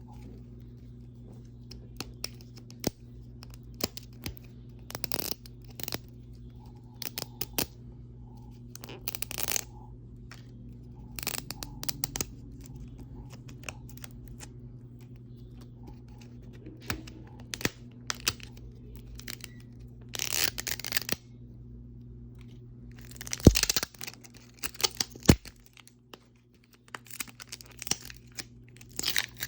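Plastic wrapping being peeled and torn off Mini Brands toy capsules: stop-start crinkling and rustling with scattered clicks and taps of hard plastic, and one sharp knock about two thirds of the way through. A steady low hum runs underneath.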